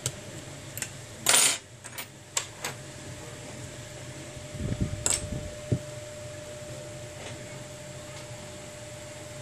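Small metallic clicks and a brief scrape from tweezers and fingers seating the little metal home-button bracket on the metal back shield of an iPhone 6 Plus display assembly. The scrape, about a second and a half in, is the loudest sound, followed by a few lighter ticks. A faint steady hum runs underneath.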